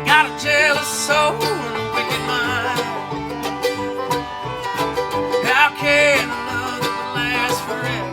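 Acoustic string band playing without vocals: banjo and guitar picking, with a melody line that wavers in pitch at the start and again near the end.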